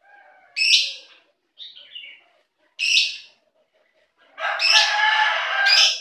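Caged lovebirds calling: three short, loud, high-pitched shrieks about two seconds apart, with softer chattering between them and a longer burst of chattering in the last second and a half.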